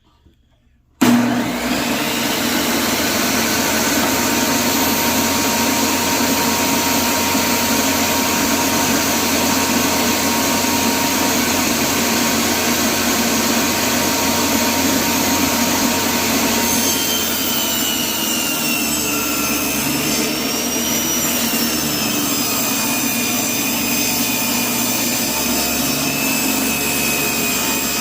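A table saw switched on about a second in and running steadily, and from about halfway a wavering whistle rises over the motor noise as the blade rips a strip of oak.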